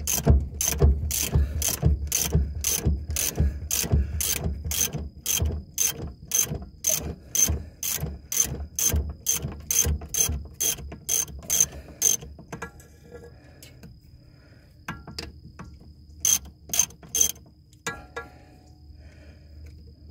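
Hand ratchet wrench with a socket backing out a driveshaft U-joint flange bolt: the pawl clicks steadily on each return stroke, a little over two clicks a second. About twelve seconds in, the clicking stops, and later there is a short run of three clicks.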